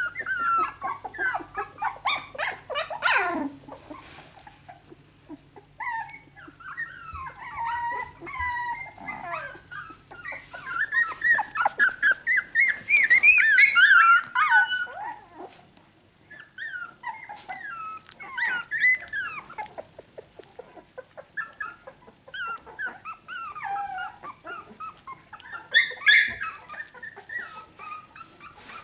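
Finnish Lapphund puppies, a few weeks old, crying with many short high-pitched calls, with a longer run of louder cries rising in pitch about halfway through.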